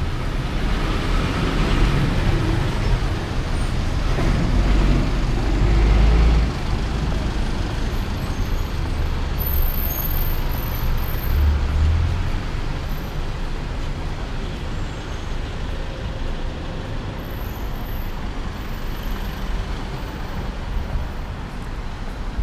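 Street traffic: motor vehicles running past on the road, a continuous rumble of engines and tyres that is loudest in the first six seconds and then eases to a steadier hum.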